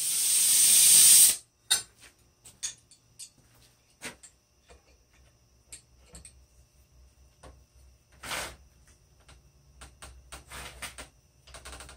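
A loud rising hiss that cuts off abruptly just over a second in, then sparse light clicks and clinks of an adjustable wrench on a red-hot 3/8-inch square steel bar clamped in a vise as the bar is twisted by hand, with one short scrape about eight seconds in.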